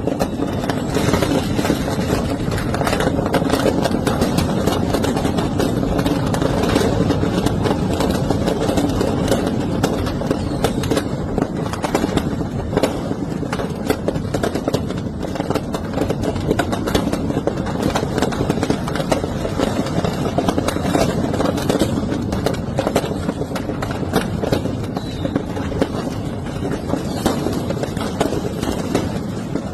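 Busy street noise: the babble of a crowd and running vehicle engines, with a dense scatter of small crackles throughout.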